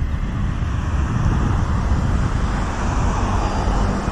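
Road traffic: a continuous rumble of vehicles, with one passing louder across the middle.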